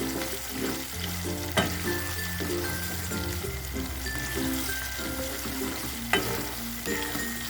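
Sambal goreng (ground red chili paste) sizzling as it fries in a pan while being stirred, with two sharp knocks, one about a second and a half in and one near the end. Background music plays along.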